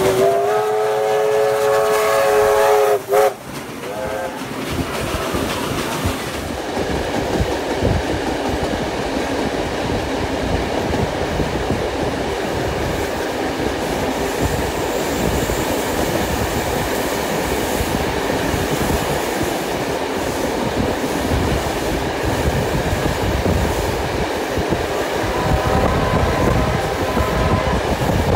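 A steam locomotive whistle sounds loud for about three seconds as several notes at once, then gives a short second toot. After that comes the steady rumble of a steam-hauled train heard through an open carriage window, wheels clattering over the track. A fainter whistle sounds again near the end.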